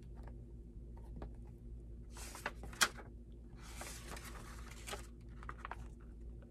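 Paper pages of a hardcover picture book being flipped and rustled, in two short bursts of rustling with a sharp click of a page or cover just before the middle.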